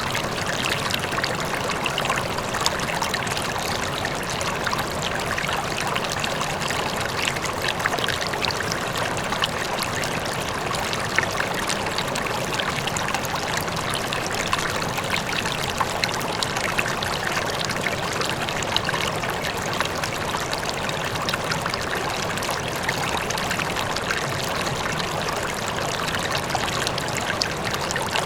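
River water flowing steadily, with many small splashes and trickles, and a faint waterfall in the distance.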